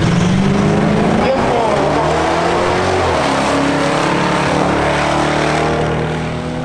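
Drag cars, a Ford Mustang Fox Body and an Audi SQ5, accelerating hard down the strip, engine pitch climbing again and again through the gears, fading a little near the end.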